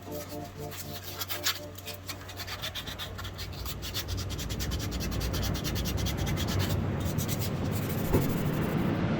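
Rapid, continuous scraping and rubbing strokes from hand cleaning work on a part of a vintage 1950s drill, growing steadily louder.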